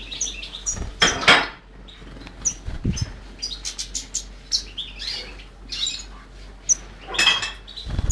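European goldfinch giving short, high chirping calls, repeated every second or so, with a few louder rustling bursts in between.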